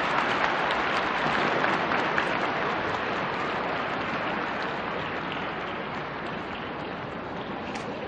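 Crowd applauding, the clapping slowly dying away.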